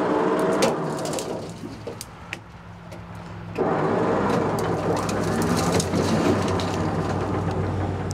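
A Ford F250 pickup being dragged by a wrecker's winch cable off its side and onto its wheels, crunching and snapping through brush and branches in two long stretches with many sharp cracks. Under it the M37 wrecker's engine runs steadily.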